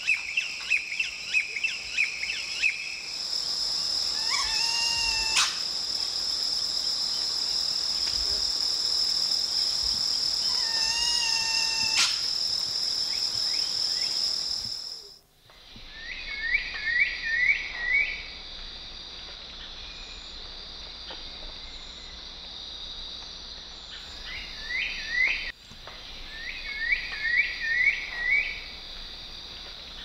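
Strong-billed woodcreeper calling: short runs of quick falling notes, and twice a slower whistled call, over a steady high-pitched insect drone that is loud for the first half.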